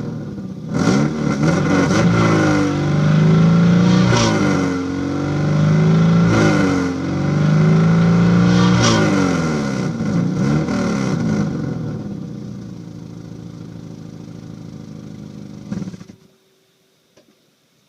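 2002 Subaru Legacy GT's 2.5-litre flat-four engine, which has an exhaust leak, being revved about four times, rising and falling in pitch. It then settles back toward idle and cuts off suddenly near the end.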